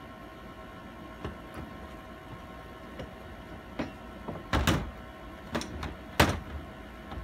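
Hammer knocking on a freshly welded steel tensioner rod: a few light taps, then a quick run of louder strikes about four and a half seconds in and the loudest single strike about six seconds in, over a steady hum.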